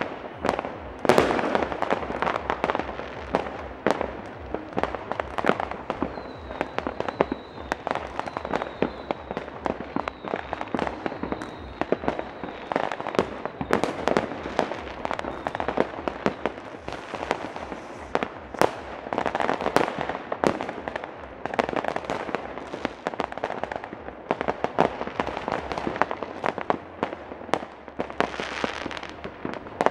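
Many fireworks and firecrackers going off at once, bangs and crackles near and far overlapping without a pause. A thin high whistle runs for several seconds in the middle.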